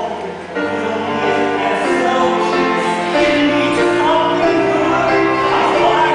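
Music with singing: voices holding long notes over accompaniment.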